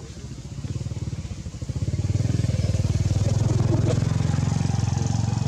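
A motor vehicle engine running, getting louder over the first two seconds and then holding steady.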